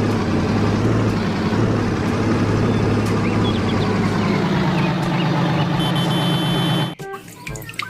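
Cement mixer truck's diesel engine running steadily, with a high steady tone joining near the end, then cutting off suddenly about seven seconds in.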